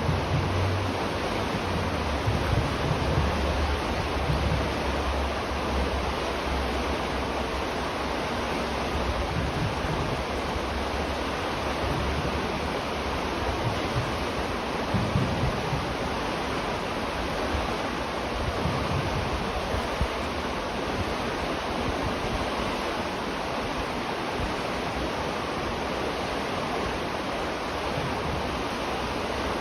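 River water flowing, a steady rushing noise with a low rumble that swells and fades underneath.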